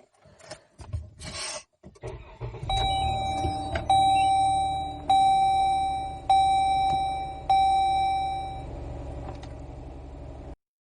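Car's dashboard warning chime sounding five times, about once every 1.2 seconds, each tone starting loud and fading, over a low steady rumble that cuts off abruptly near the end.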